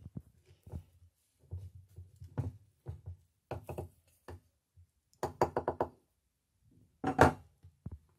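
Wooden pestle tamping fermented shredded cabbage down in a glass jar: a string of separate knocks, with a quick run of about six strokes about five seconds in and one louder knock near the end.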